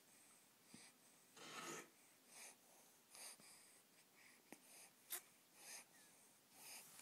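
Faint breathing and snuffling of a newborn baby: short, soft breaths at irregular intervals, with a few small clicks.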